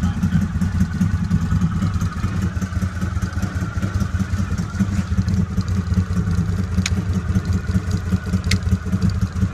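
A 2014 CFMoto ZForce 800 EX side-by-side's 800 cc V-twin engine idling with a steady, throbbing low rumble. Two sharp clicks come near the end as the dash rocker switches are pressed.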